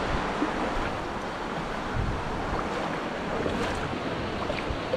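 Sea surf washing ashore: a steady rushing wash with no distinct breaks.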